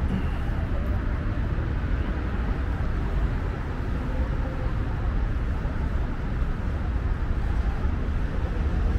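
Steady city street noise, mostly a low, even rumble of road traffic.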